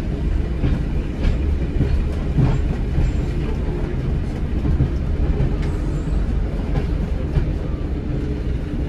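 Class 108 diesel multiple unit heard from the driver's cab, running along the line: a steady diesel rumble with a few held engine tones, and scattered clicks from the wheels on the track.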